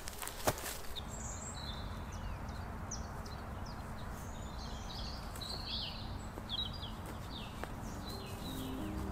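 Wild birds chirping and singing, many short calls overlapping, over a low steady rumble. A couple of sharp clicks come in the first second.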